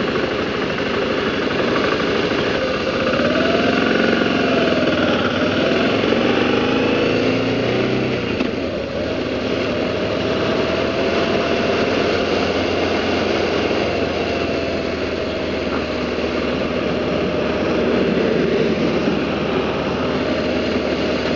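BMW G650GS single-cylinder motorcycle engine running while riding in city traffic, its pitch rising a few seconds in as the bike speeds up, then holding steady, with constant road and wind noise.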